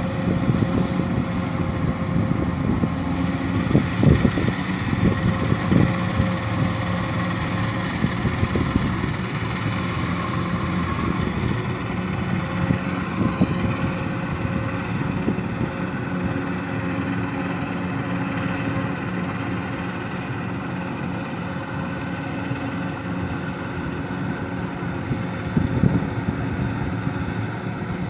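An engine running steadily at an even speed, with a few knocks or thuds in the first several seconds and again near the end.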